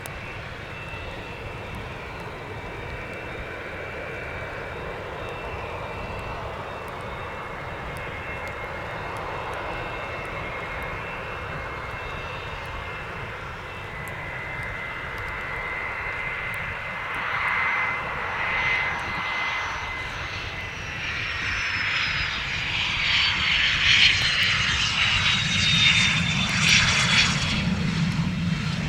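Jet aircraft engines growing louder as the aircraft approaches and passes, with a high whine that falls steadily in pitch over the second half.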